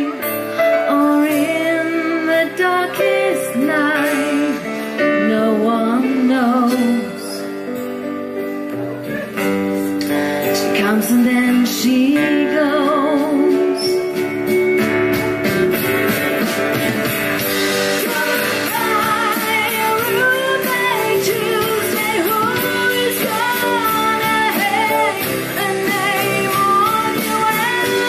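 A rock band playing a song, with guitar and a lead melody line that bends and wavers in pitch.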